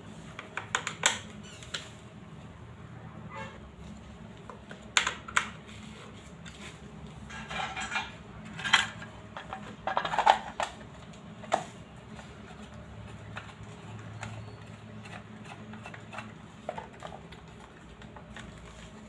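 Scattered clicks and taps of a screwdriver on the terminal screws of a single-phase prepaid electricity meter, and of its clear plastic terminal cover being handled and fitted, over a low steady hum.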